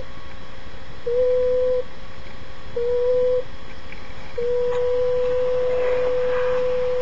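A single steady tone at one pitch, sounded three short times and then held long, over a constant rushing background noise.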